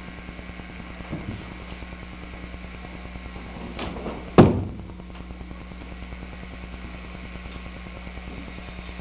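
One loud, sharp thump about four seconds in, from a Sunmudo martial arts performer's movement on a wooden floor, with a fainter knock about a second in, over a steady electrical hum.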